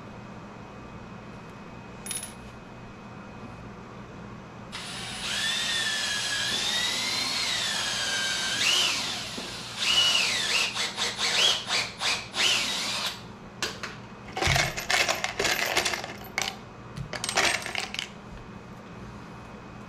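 Cordless drill-driver running in spurts, its pitch rising and falling with the trigger as it drives screws into a wooden box. A run of sharp clicks and clatters follows near the end.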